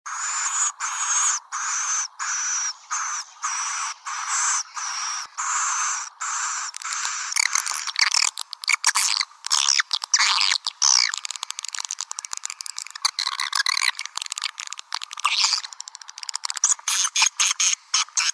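Edible-nest swiftlet calls played as a lure to call swiftlets in. A regular series of high chirps, about one and a half a second, runs for the first seven seconds, then gives way to dense, rapid twittering and clicking chatter.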